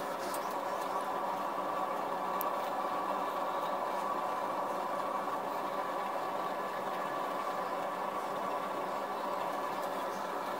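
A steady mechanical hum, even in level throughout, with a few faint ticks.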